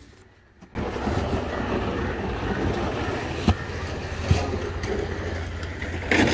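Steady outdoor background noise, a hiss over a low hum, setting in just under a second in, with two short knocks in the middle as fish are laid in the ice box.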